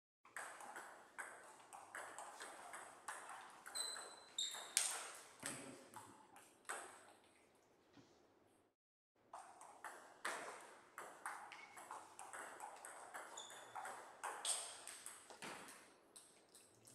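Table tennis ball clicking off bats and table in quick rallies, about two to three hits a second. There are two runs of hits with a short break a little past halfway.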